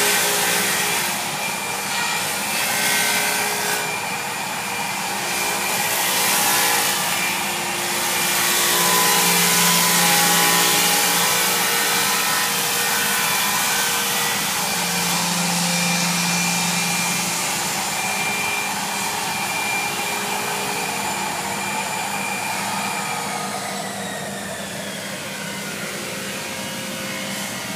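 CNC surfboard shaping machine's spinning cutter head machining a foam blank: a steady loud whirring hiss with a whine that shifts in pitch as the cut goes on. About 23 seconds in the whine falls steadily in pitch as the cutter spins down.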